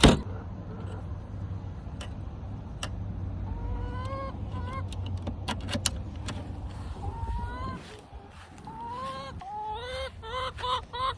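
Backyard hens calling and clucking, a run of short rising calls repeated every second or so. A sharp knock right at the start is the loudest sound, and a low rumble underneath stops about eight seconds in.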